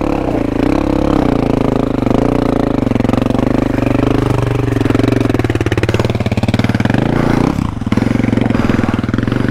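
Dirt bike engine revving hard close by, its pitch rising and falling unevenly as it is worked up a steep rocky climb, with a brief drop in revs about three quarters of the way through before it picks up again.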